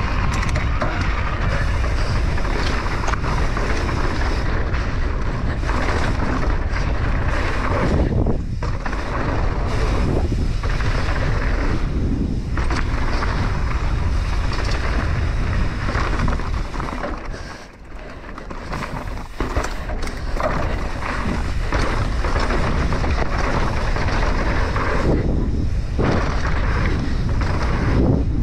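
Mountain bike descending a dry dirt trail: wind buffeting the bike-mounted camera's microphone over the hiss of knobby tyres on dirt, with frequent rattles and knocks over bumps. The noise eases briefly about two-thirds of the way through.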